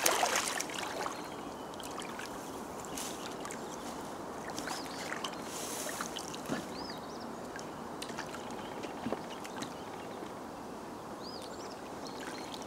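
Bare feet swinging in still pond water: light, irregular splashing and trickling. Two short high chirps come about five seconds in and near the end.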